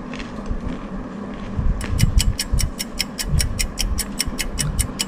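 Mouth crunching and chewing flour-coated peanuts, with uneven low thumps. From about two seconds in, a fast, even ticking of about six clicks a second runs alongside.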